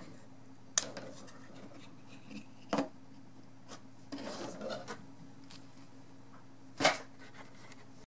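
Small handling sounds: a USB cable being unplugged from a cable tester board and set aside. There are three short sharp clicks, about a second in, near three seconds and near seven seconds, and a brief soft rustle about four seconds in.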